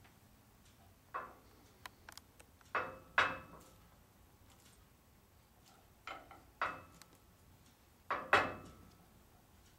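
Metal parts and hand tools clanking and clinking while a panhard bar is fitted to a truck's rear axle. There are about eight sharp knocks, each with a short ringing tail, coming in small clusters. The loudest pair comes near the end.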